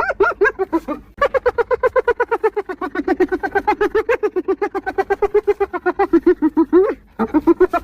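Spotted hyena giggling: long bouts of rapid, pitched, staccato whoops at about eight notes a second, with short pauses between bouts and a brief upward slide in pitch near the end of some bouts.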